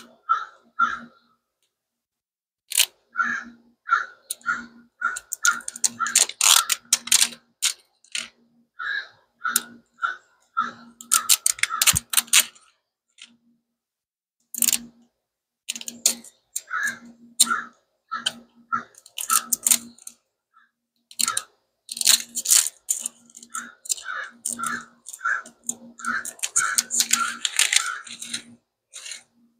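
Paper label and wrapping being peeled and torn off a plastic toy capsule ball by hand: many short rubbing and scraping sounds of fingers on the wrapper, with several spells of crackling and tearing paper.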